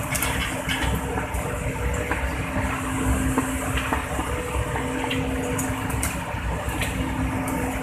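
Excavator's diesel engine running steadily, a constant hum over a low rumble, with scattered short clicks and knocks as the machine works.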